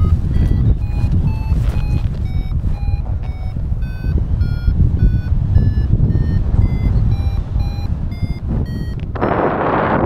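XCtracer Mini IV variometer sounding its climb tone: short beeps about twice a second, their pitch rising and then falling again, signalling the paraglider is climbing. Wind rumbles on the microphone throughout and swells into a loud rush about nine seconds in, covering the beeps.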